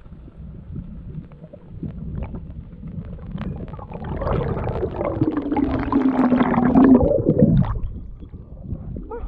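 Underwater recording: muffled low rumbling and gurgling water. About four seconds in, a loud, drawn-out, muffled tone starts, slides down in pitch and holds for about three seconds before stopping.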